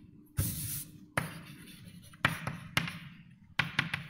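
Writing on a lecture board: a run of about six sharp taps as the writing tool strikes the board, one followed by a short scratchy stroke.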